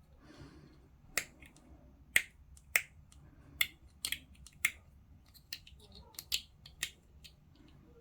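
Plastic model parts being snipped and handled with hobby tools: about a dozen sharp, irregular clicks.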